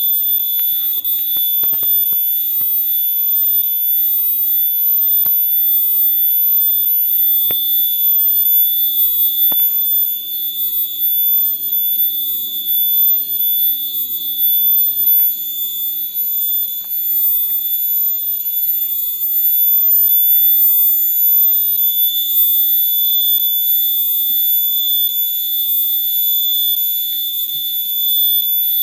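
Cicadas singing a loud, continuous high-pitched whine that holds one steady pitch without a break.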